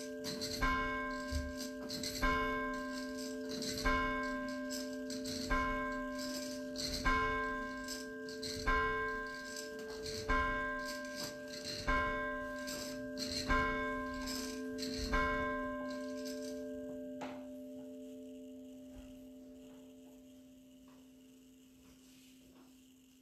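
A bell struck slowly and evenly, about ten strokes roughly a second and a half apart, each ringing over a steady low hum. The strokes stop about 17 seconds in and the ringing dies away slowly.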